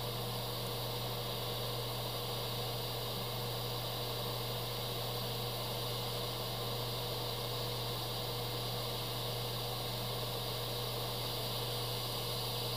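Steady hiss of air from an airbrush held close to the panel, blowing thinned paint out into dots at low pressure (about 10 PSI), with a constant low hum underneath.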